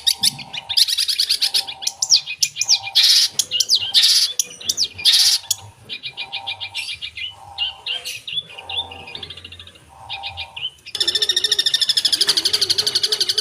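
Long-tailed shrike (cendet) singing a varied mimicking song of fast chattering trills and sweeping whistles, mixed with imitations of other birds' calls. About eleven seconds in it switches to one dense, very fast trill.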